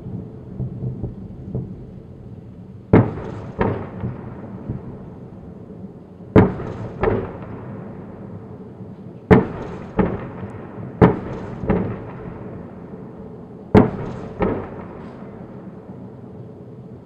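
Distant artillery fire: a few faint thuds at first, then five loud booms spaced two to three seconds apart, each followed about half a second later by a second, duller boom, over steady background noise.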